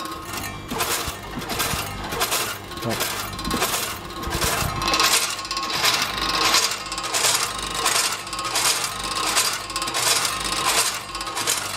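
Yamato ADW314 multihead weigher running: a rapid, uneven metallic clatter from its stainless-steel hopper gates snapping open and shut as mini muffins drop through, over a steady hum.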